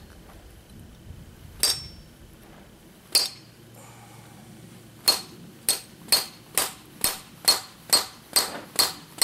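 Hammer blows on a hammer-type crimping tool, metal on metal with a bright clink, crimping an end connector onto 6 gauge battery wire. Two spaced strikes, then a quick even run of about nine, roughly two a second.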